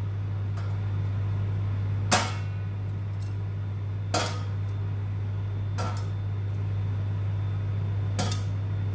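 Metal kitchen tongs clicking against a large black pan: four sharp clinks about two seconds apart, with a few fainter ticks between. A steady low hum runs underneath.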